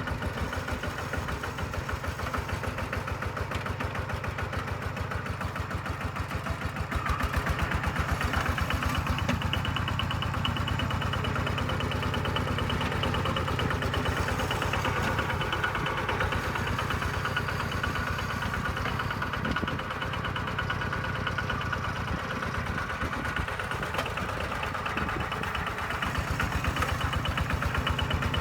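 Kubota walk-behind tractor's single-cylinder diesel engine chugging steadily while working a dozer blade through mud, getting louder for a few seconds about seven seconds in and again near the end.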